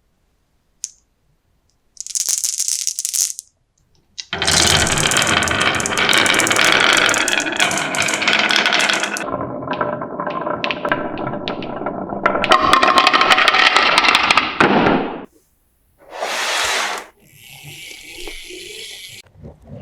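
Marbles rolling and clattering down a wooden marble run, a long dense rattle of many quick knocks, broken by short pauses and brief hissing bursts.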